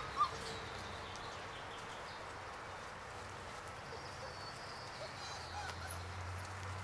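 A six-week-old German Shorthaired Pointer cross puppy gives a short high whimper right at the start. After it there is only a faint, even outdoor background.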